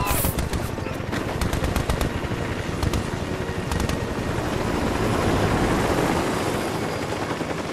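War-film battle sound effects: automatic gunfire, many sharp shots close together in the first couple of seconds, over a dense, steady rumble that swells briefly past the middle.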